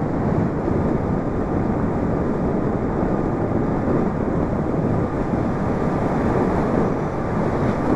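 Steady wind rush and road noise on the microphone of a Zero electric motorcycle being ridden at speed, with no engine sound to speak of.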